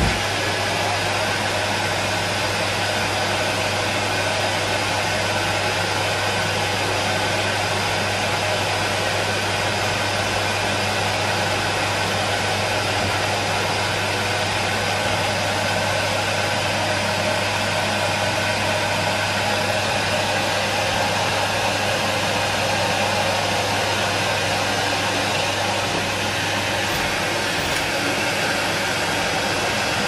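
Numatic Henry vacuum cleaner running steadily, a constant motor hum and rushing air hiss.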